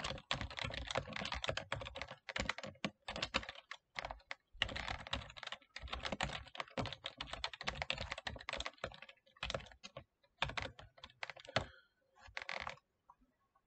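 Typing on a computer keyboard: quick runs of keystrokes broken by short pauses, stopping about a second before the end.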